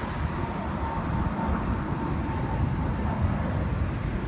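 Jet noise from a Boeing 737 MAX 8's CFM LEAP-1B turbofans as it climbs away after takeoff: a steady distant rumble with a faint whine.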